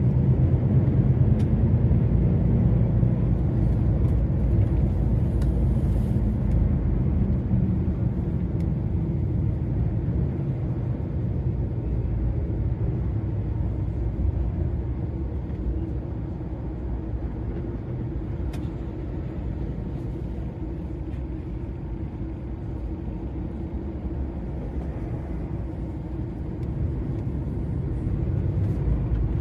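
Steady low rumble of a DAF XF 480 lorry's diesel engine and road noise heard from inside the cab while driving, a little louder for the first several seconds and then easing.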